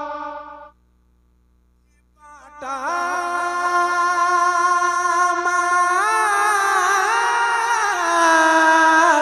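A man singing a naat: a held note fades out, followed by about a second and a half of near silence. Then he comes back in on a long drawn-out line with a wavering, ornamented pitch.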